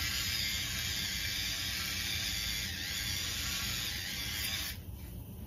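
A steady hiss that cuts off suddenly near the end.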